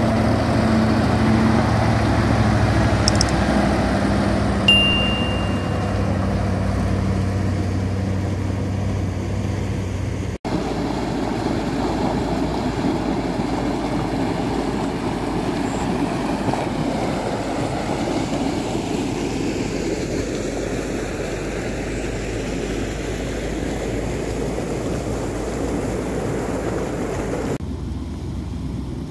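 Diesel engine of a cement mixer truck running steadily as the truck drives on a gravel road, with a brief high tone about five seconds in. About ten seconds in the sound cuts suddenly to a steady rush of water pouring through a concrete irrigation sluice gate.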